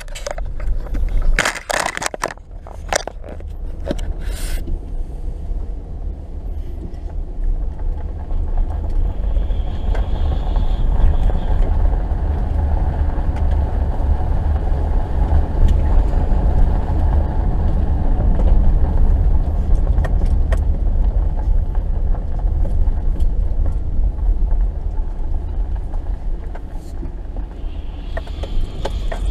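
2018 Subaru Forester driving slowly over snow: a steady low rumble of engine and tyres. A few sharp knocks and clatter come in the first few seconds.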